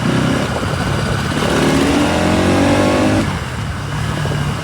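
Bajaj Pulsar NS200 single-cylinder engine accelerating under the rider, its note climbing in pitch for a couple of seconds, then falling away about three seconds in as the throttle is eased or a gear is changed. Wind rush on the microphone throughout.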